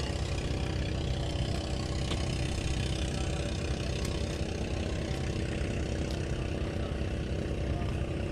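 Fishing boat's engine running steadily at idle, with a few faint knocks.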